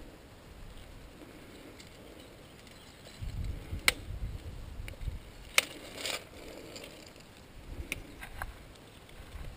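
Sharp metallic clicks of the steel buckle and chain of an anti-skid wheel bracelet being handled: two loud ones a little under two seconds apart in the middle, and a few fainter ones near the end, over a low rumble.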